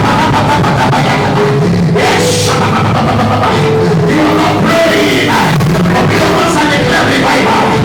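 Worship band playing loud music with a drum kit, with singing voices over it.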